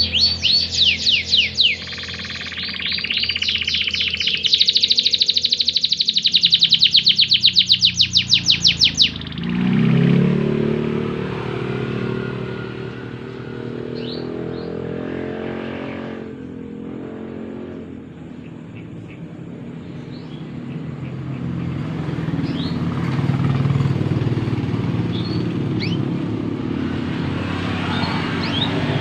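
Domestic canary singing loud, rapid trills of fast repeated notes that stop abruptly about nine seconds in. A lower, steady engine rumble like a passing motorcycle follows, with a few faint chirps over it.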